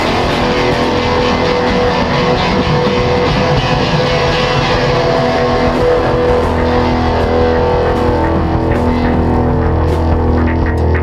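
Heavy rock music: distorted electric guitar over bass guitar at a steady loudness. From about halfway, a low bass note holds steady underneath.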